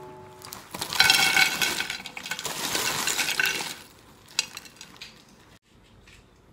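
Crisp dried vegetable and fruit chips poured from a foil-lined bag onto a plate, rattling and clinking for about three seconds, followed by a couple of light clicks.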